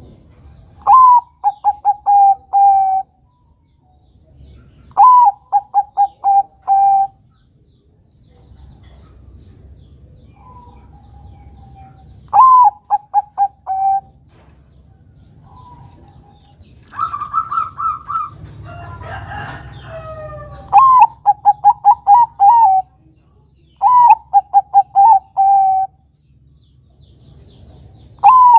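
Zebra dove (perkutut) cooing: about six phrases a few seconds apart, each an opening note followed by a quick run of short staccato coos and a longer final note. Around the middle, a different, more tangled burst of calling comes in before the regular phrases resume.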